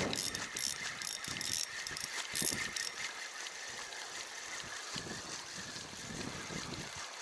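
Spinning reel being cranked to retrieve a lure, its gears whirring with fine rapid clicks, stronger in the first few seconds.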